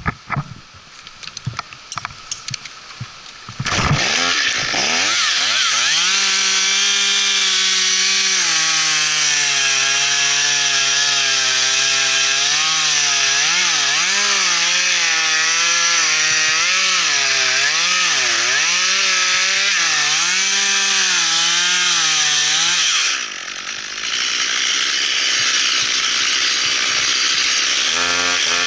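Stihl top-handle chainsaw cutting into a dead oak trunk. It comes in loud about four seconds in and runs under load, its pitch rising and falling as the chain works through the cut. Near the end the engine drops for a moment, then revs back up.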